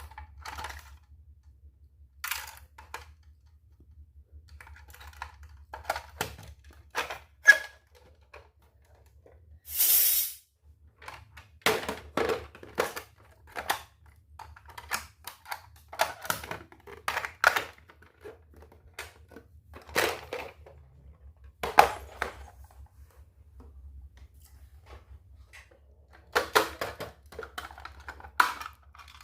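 Small toy kitchen pieces being unpacked and handled, giving irregular clicks and taps as they are picked up and set down. About ten seconds in there is a short crinkle, like packaging being torn or rubbed.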